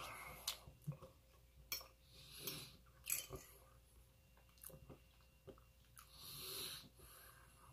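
Faint chewing of a mouthful of rice, with a few short clicks of a metal fork against a plate as the next bite is scooped up.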